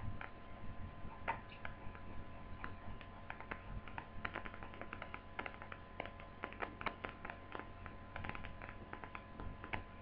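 Irregular light clicks and taps of a laptop's plastic casing and small parts being handled and unclipped during disassembly, over a faint steady hum.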